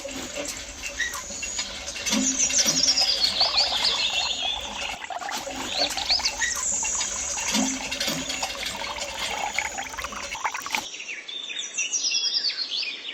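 Many small birds chirping and twittering in quick, overlapping calls over a steady hiss of outdoor background, which changes abruptly about eleven seconds in as the chirping continues.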